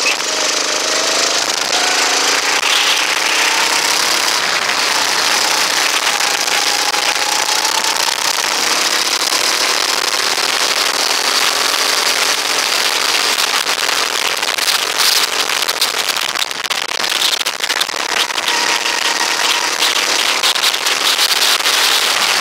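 Rental go-kart's small engine running under throttle, its pitch slowly falling and rising as the kart goes through the corners, under heavy wind rush and crackling buffets on the microphone.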